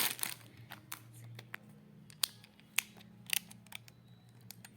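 Packaging being handled and cut open by hand: a scattering of separate sharp clicks and snips, about eight in all, over a faint steady low hum.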